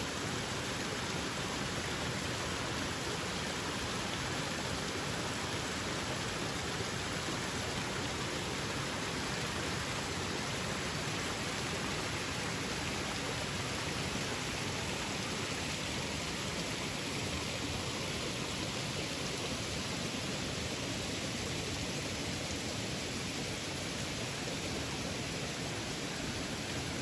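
A small mountain stream running over rocks and down a little cascade: a steady rush of splashing water.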